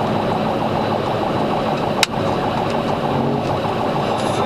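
Steady cabin noise of a police cruiser driving at high speed in a pursuit: engine, tyre and wind noise, with a single sharp click about two seconds in.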